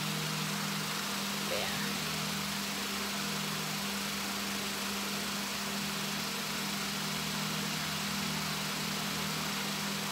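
Steady low machine hum at a constant pitch, over a faint even hiss.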